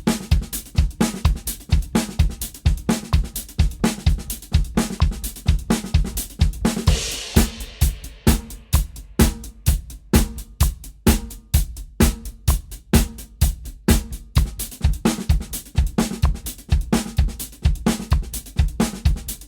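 Drum kit playing a fast groove built from single paradiddles as sixteenth notes, spread across snare, bass drum and hi-hat. A cymbal rings out about seven seconds in.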